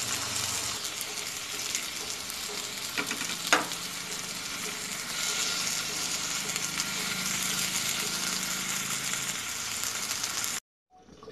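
Skewered chicken tikka pieces sizzling as they fry in hot oil in a pan, with a couple of short clinks about three seconds in. The sizzle stops abruptly near the end.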